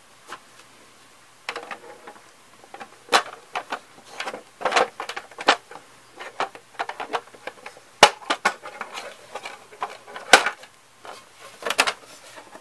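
Hard plastic Playmobil building parts knocking and clicking against each other as they are handled and fitted together. The sharp clicks and knocks come irregularly from about a second and a half in, the loudest about three, eight and ten seconds in.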